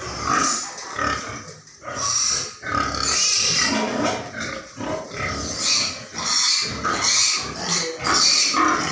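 Pigs vocalising in a near-continuous, irregular string of calls with only short breaks between them.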